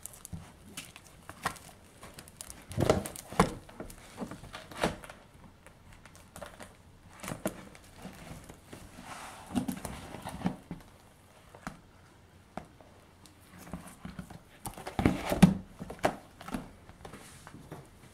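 Matte plastic pocket pages of a banknote album being turned and handled, crinkling and rustling with scattered soft knocks as the sheets flop over; the loudest handling comes about three seconds in and again around fifteen seconds.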